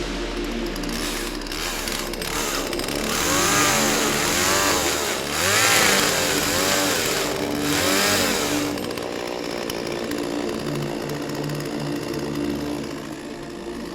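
Chainsaw engine running and being revved, its pitch rising and falling about once a second for several seconds in the middle before settling back.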